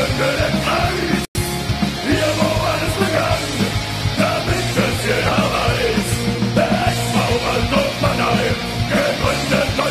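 Punk rock song with shouted vocals over a steady bass. The music drops out for an instant just over a second in.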